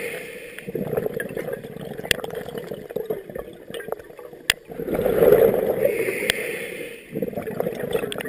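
Scuba diver's regulator breathing underwater: surges of exhaled bubbles lasting a second or two, each rising and falling, with a brief hiss of inhaling through the regulator. A few sharp clicks in the middle.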